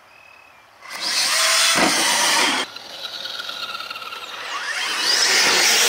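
Electric motor of an RC truck whining at full throttle as it launches off a dirt jump: it starts about a second in, eases off briefly, then winds up again with a rising whine near the end.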